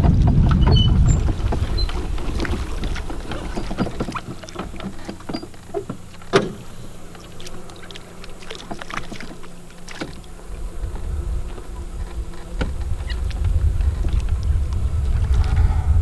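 Golf cart rolling slowly along a lake bank, its low rumble dropping away about a second in and building again near the end, while frogs spooked from the bank plop into the water in scattered small splashes and clicks, the sharpest about six seconds in.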